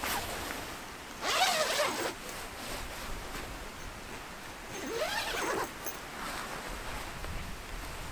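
Zipper on a Kirkham's canvas tent pulled twice in quick strokes, about a second in and again about five seconds in, each zip lasting under a second.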